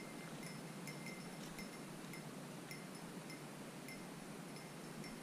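Small metal bell tinkling in short, unevenly spaced rings, about two a second, over a steady faint outdoor hiss.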